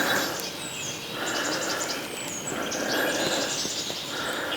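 Wild birds calling: short repeated calls about once a second, with a few quick high chirps over them.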